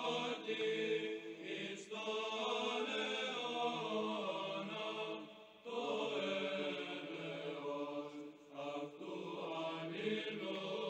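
Background choral chanting of voices holding long sustained notes, with a short break a little past halfway.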